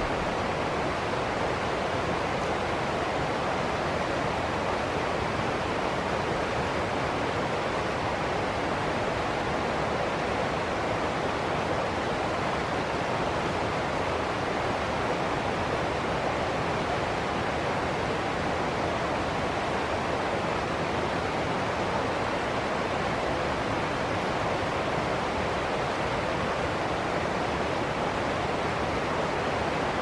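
River water rushing and splashing over rocks in small whitewater rapids: a steady, even rush with no breaks.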